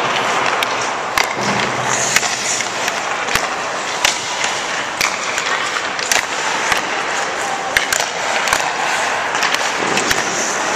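Hockey skate blades scraping and carving on rink ice as a steady hiss, cut by a dozen or so sharp, irregular clacks of sticks striking pucks and pucks hitting the goalie and net.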